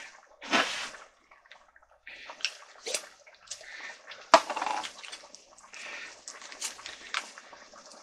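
A stainless steel stock pot of chicken curry boiling, its surface bubbling and popping irregularly, with a sharper pop a little past four seconds in.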